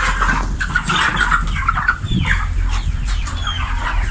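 A large flock of chicks calling all at once, many short overlapping cheeps, over the steady low hum of the shed's ventilation fans.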